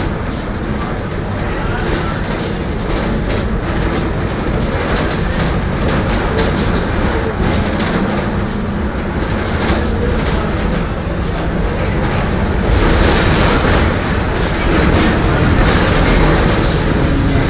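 Mercedes-Benz OF-1721 city bus with a Marcopolo Torino body running, a steady rumble of engine and road with frequent rattles and clicks. A low hum comes and goes: the differential growling at low engine revs.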